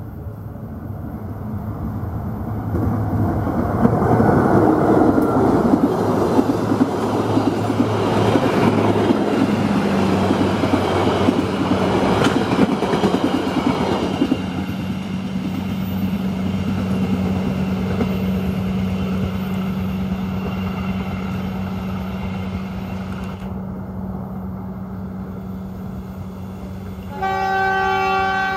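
Diesel-hauled train of new stainless-steel passenger coaches passing close by: a rising rumble of wheels on rail with clickety-clack over the joints, loudest from about four to fourteen seconds in, then easing off as the coaches draw away under a steady low hum. Near the end the train horn sounds in short pulses.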